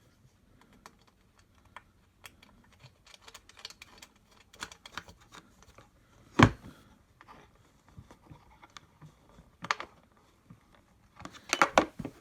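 Scattered small clicks and taps of a screw and nut being handled and fitted on the Hover-1 Buggy's metal frame, with a sharp knock about six seconds in, another near ten seconds, and a cluster of clicks near the end.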